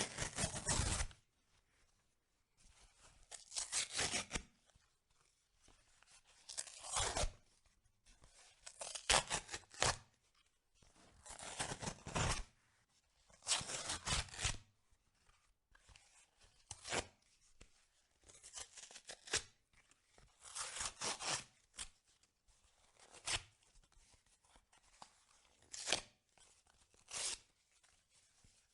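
Corrugated cardboard pizza box being torn apart by hand in a series of rips, each a second or so long, with short pauses between; the later tears are shorter and softer.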